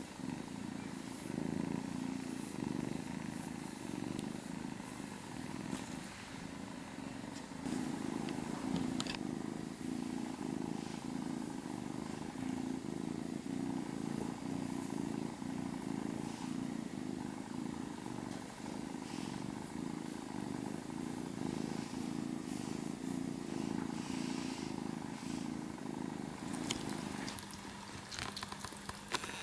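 Kitten purring steadily and close up while being stroked under the chin. Near the end the purring stops and small clicking sounds of the kitten eating from a metal bowl follow.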